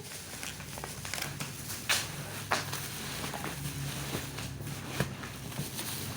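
Plastic and cardboard packaging being handled and unwrapped, crinkling with a string of sharp clicks and snaps, the loudest about two seconds in, again half a second later and near five seconds, over a steady low hum.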